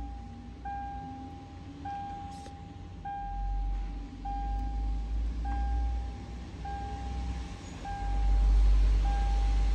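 A car's interior warning chime beeping over and over at about one beep a second, each beep a clear held tone. Under it is a low rumble that swells near the end.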